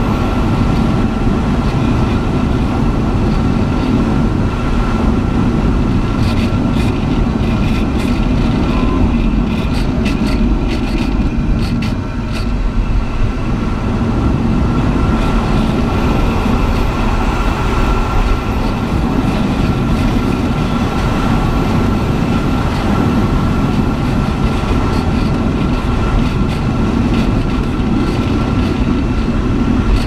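Air rushing past the canopy of a Swift S1 aerobatic glider, heard inside the cockpit as a loud, steady rush with a deep rumble, and a few knocks and rattles in the middle.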